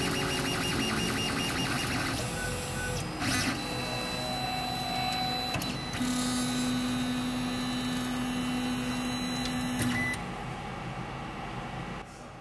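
A 3D printer running a print, its stepper motors whining in steady tones that jump to a new pitch every second or few as the print head changes moves. The sound drops away near the end.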